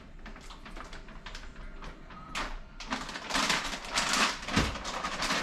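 Kitchen food-prep noises: an irregular run of small knocks and clicks, with louder noisy bursts about two and a half seconds in and again between about three and four and a half seconds in.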